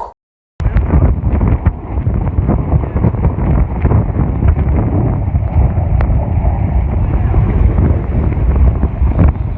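Strong wind buffeting the microphone, a loud, rough, low rumble with scattered faint clicks. It cuts in suddenly after a moment of silence.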